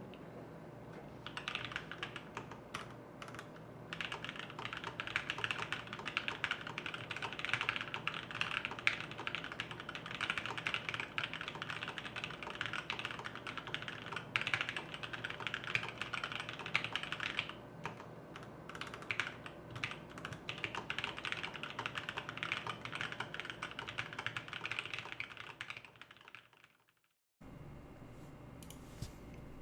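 Fast, continuous typing on a DNA59 50% ortholinear mechanical keyboard with Gateron Brown tactile switches, lubed with 205g0, and DSA keycaps, giving a dense run of keystroke clacks. There is a brief pause partway through, and the typing fades out near the end.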